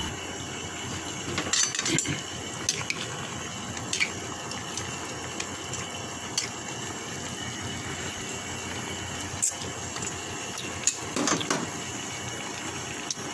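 Chicken pieces cooking in a pan on the stove, a steady sizzling hiss, with a few sharp clinks now and then.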